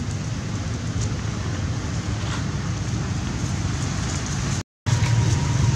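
Steady outdoor background noise, a low rumble with a hiss over it. It cuts out for a moment near the end and comes back slightly louder.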